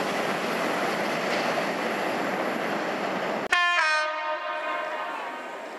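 Wagons of a container freight train rolling along the rails. About three and a half seconds in, after a sudden cut, a Class 66 diesel locomotive's horn sounds loudly as one chord and fades away over about a second and a half.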